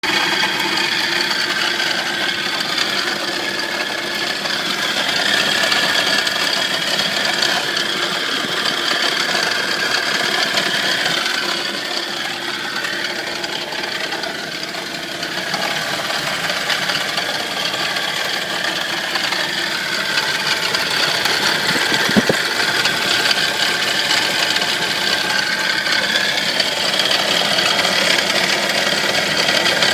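Nissan 240SX engine running steadily at idle with a rattle from the engine, whose cause the owner does not know. One sharp click stands out about two-thirds of the way through.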